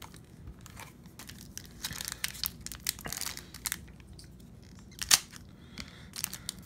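Foil wrapper of an Upper Deck MVP hockey card pack crinkling and crackling in the hand as it is handled for opening, with irregular clicks and one sharper snap about five seconds in.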